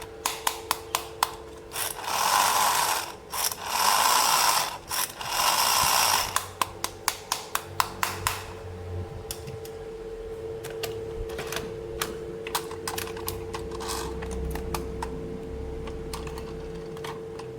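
Plastic toy pieces being handled and clicked together, with three rustling bursts of about a second each and fast runs of sharp clicks, then lighter ticking, over a faint steady hum.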